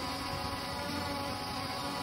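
KF102 quadcopter hovering, its propellers giving a steady whine of several held tones over a rushing hiss.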